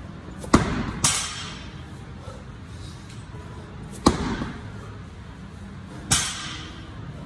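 Slam ball thrown down hard onto a rubber gym floor: four heavy thuds, two in quick succession near the start, then one every two seconds or so, each with a short echo.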